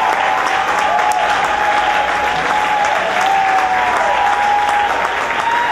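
Audience applauding steadily. Over the clapping come long drawn-out pitched sounds that rise, hold and fall, about once a second.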